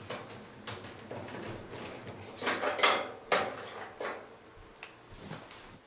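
Short metallic scrapes and clicks, about half a dozen, as a nut driver works the screw of a Maytag Neptune dryer's top-lid hold-down bracket and the bracket is twisted free of the cabinet.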